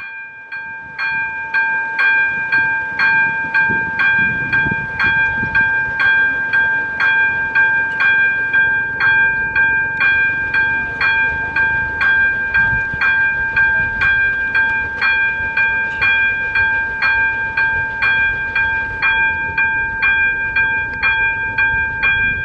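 Level-crossing warning bell ringing steadily, a bright clanging tone repeated about twice a second, sounding because a train is approaching. Underneath it, at times, is the low rumble of the approaching steam locomotive.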